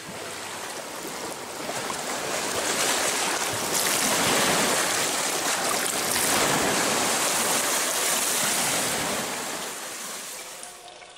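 Small waves washing and splashing against a lake shore around someone wading in the shallows, an even rushing of water. It swells a couple of seconds in and fades away near the end.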